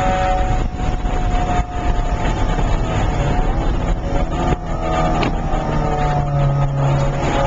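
Porsche 968's 3.0-litre four-cylinder engine heard from inside the cabin while driven on a race track. The engine note dips briefly about a second in and again near two seconds, drops once more about four and a half seconds in, then the revs climb steadily under acceleration.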